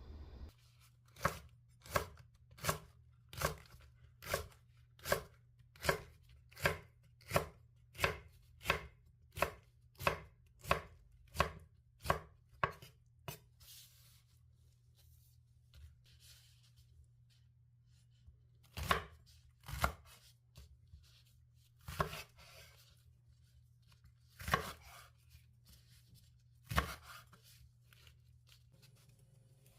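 Kitchen knife chopping on a cutting board: about eighteen steady, even strokes roughly one every 0.7 seconds, then a pause and five slower, scattered chops.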